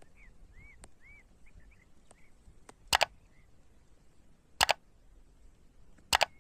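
Three sharp mouse-click sound effects from an animated subscribe-button overlay, each a quick double click, about three, four and a half and six seconds in. Faint bird chirps can be heard in the first two seconds.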